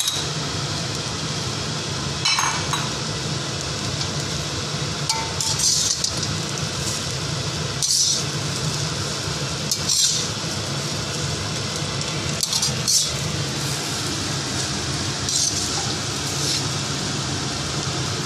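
Steel slotted spoon scraping and clinking against a wok as egg fried rice is tossed and stirred, a stroke every two to three seconds, over a steady rushing background noise.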